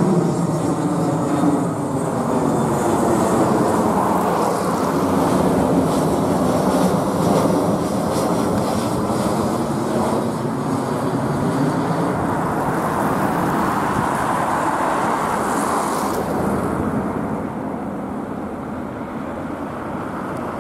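Airbus A320-214 passing low overhead on approach with its landing gear down: the steady noise of its two CFM56-5B turbofan engines and airframe, with slowly sweeping tones as it passes. It fades and grows duller in the last few seconds as the aircraft moves away.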